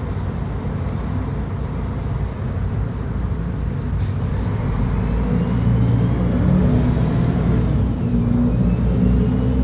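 Diesel engine of a Mercedes-Benz O500UDA bi-articulated bus running under way, growing louder and rising in pitch from about halfway as the bus accelerates, with a faint rising whine above it.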